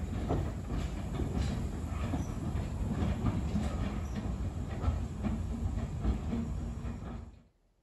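Talyllyn Railway steam locomotive Tom Rolt running slowly into the shed, a steady rumble with wheels clicking over the rail joints. The sound cuts off abruptly near the end.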